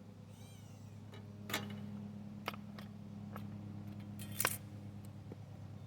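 A steady low hum, with a few sharp clicks spread through it and a brief wavering high-pitched call about half a second in.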